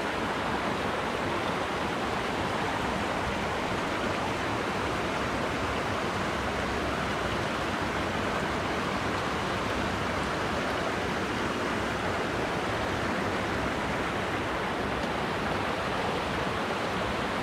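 Steady rush of fast-flowing water, an even hiss that holds at one level throughout.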